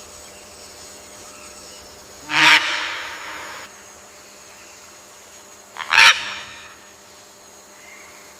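Scarlet macaw giving two loud squawks about three and a half seconds apart, over a faint steady background.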